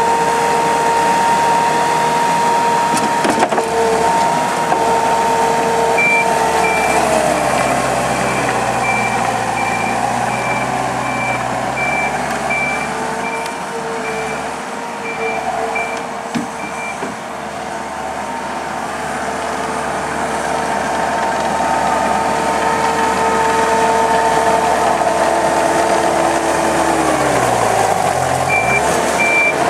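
Takeuchi TL150 track loader's 97 hp diesel engine running with a steady hydraulic whine. Its reversing alarm beeps about once a second while it backs up, from about six seconds in to about seventeen seconds, and again near the end. The engine pitch sags and recovers briefly near the end, as it comes under load.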